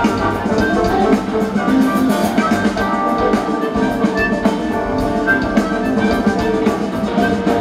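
A live rock band playing: electric guitars, bass guitar and drum kit together, with a steady beat and many quick, short notes.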